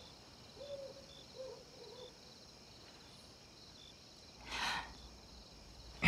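Faint night ambience of crickets chirping in a steady high trill with scattered short chirps. About four and a half seconds in comes a brief soft breath-like rush of noise.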